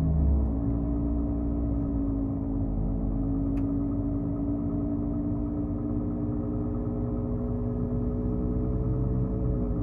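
Wheels of a Volkswagen turning under power on a lift, giving a steady drone from a worn wheel hub bearing along with the running drivetrain; the pitch eases down slightly near the end. A single sharp click comes about three and a half seconds in.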